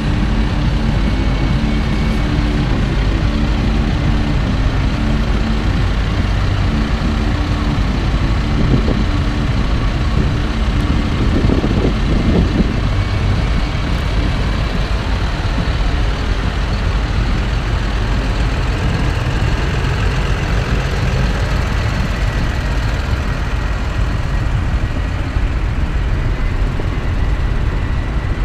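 Claas farm tractors driving past in a convoy, their diesel engines giving a steady low drone. It swells as a tractor passes close, about twelve seconds in.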